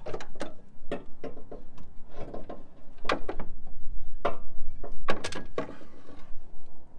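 Jeep Cherokee XJ rear leaf spring being worked loose from its hanger and shackle by hand: a string of irregular metal clanks and knocks. The loudest knocks come about three, four and five seconds in.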